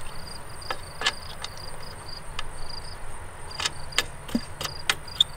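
Scattered sharp metal clicks and taps from the bolt and knob of a hitch-mounted bike rack being handled, several coming close together near the end. Insects chirp steadily in the background.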